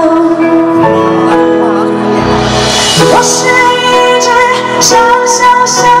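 Live band playing a pop ballad, with cymbal strikes several times in the second half.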